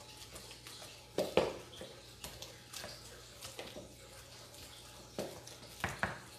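Pestle mashing ripe avocados in a mixing bowl: irregular wet squishy strikes, with the pestle knocking against the bowl. The strikes are loudest a little after a second in and again near the end.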